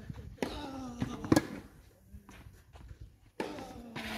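Tennis racket striking a ball: one sharp hit about a second and a half in, with a few fainter knocks around it.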